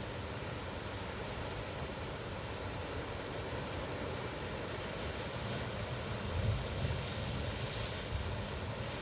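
Ocean surf washing on a beach, a wave breaking more loudly a little past the middle, with wind rumbling on the microphone.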